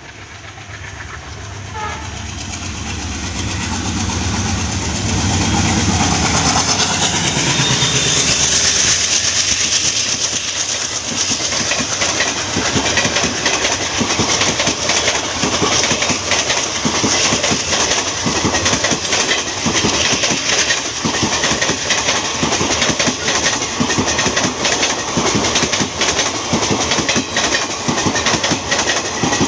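Diesel locomotive hauling a long passenger train, approaching and passing close by, its engine chugging louder over the first several seconds. From about ten seconds in, the coaches roll past with a steady rhythmic clickety-clack of wheels over the rail joints.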